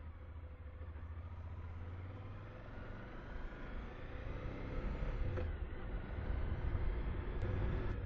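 Suzuki V-Strom's V-twin engine pulling away and accelerating, rising in pitch as it gathers speed, with a gear change about five seconds in, then rising again and getting louder.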